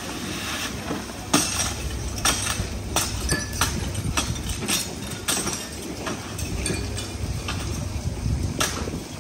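Sharp knocks and clinks at irregular intervals, about one a second, over a steady low rumble: firefighters' hand tools striking and breaking material while opening up at a house fire.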